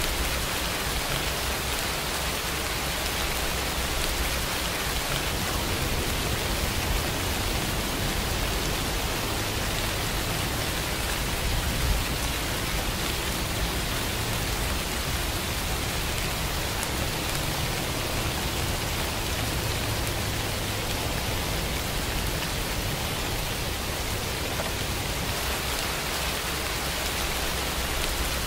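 Steady rain, an even hiss, with a low rumble underneath that strengthens through the middle and one brief louder tap about twelve seconds in.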